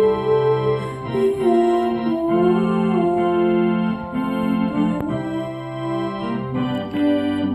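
Electronic keyboard playing a slow Tongan hymn in long held chords, with a melody line moving over them.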